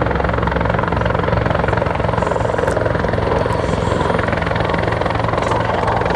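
Bell 412 helicopter flying close, its rotor and turbine engines running loud and steady, with the even pulsing beat of the rotor blades underneath.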